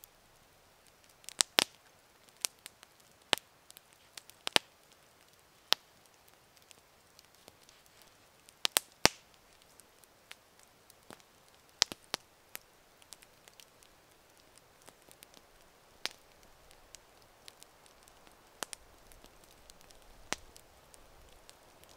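Wood fire crackling: scattered, irregular sharp pops and snaps over a quiet background. They come most often in the first ten seconds, the loudest near the nine-second mark, then thin out.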